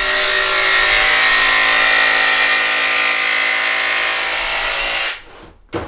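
Power tool running steadily at the workbench, then cutting off abruptly about five seconds in, with a brief knock just before the end.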